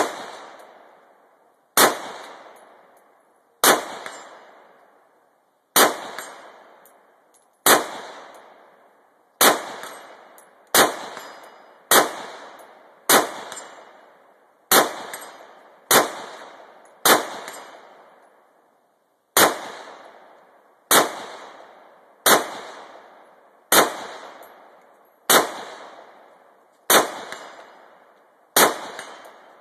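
AR-15 rifle fired in deliberate single shots, about nineteen loud cracks spaced one to two seconds apart, each trailing off in an echo.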